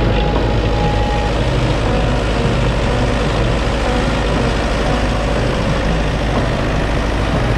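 Tractor engine running steadily, a loud, even mechanical drone with a strong low rumble.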